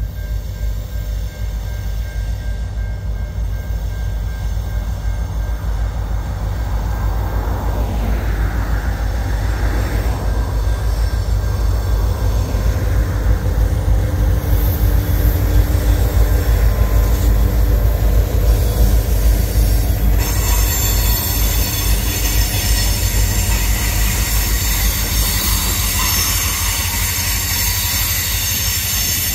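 Freight train hauled by several diesel locomotives approaching and passing close by, the engines' low rumble growing louder as they draw level about halfway through. The wagons that follow add a steady high squeal from their wheels.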